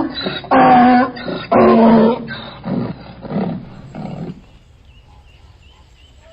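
Donkey braying: a series of loud hee-haw calls, about one a second, that weaken and die away about four seconds in.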